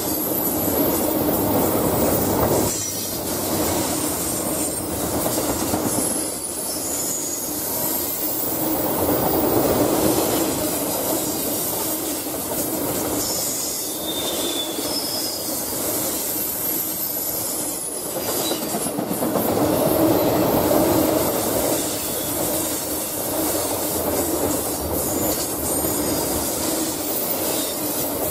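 Intermodal freight cars rolling past close by: a steady rumble of steel wheels on rail that swells twice, with short high-pitched wheel squeals now and then.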